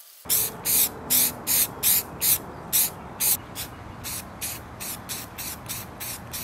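Aerosol spray-paint can sprayed in a rapid string of short hissing bursts, about two to three a second, coating a steel plane blade. The first several bursts are louder than the later ones.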